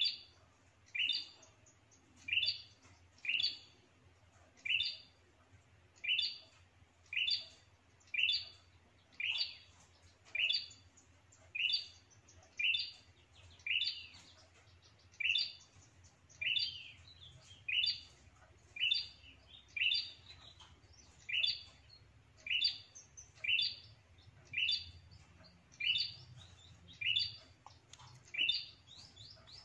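A prenjak calling: a short, sharp, high chirp repeated steadily about once a second, some 25 times in a row. This is the bird's territorial call, used as a lure (pikat) to draw rival prenjak in to drive off the caller.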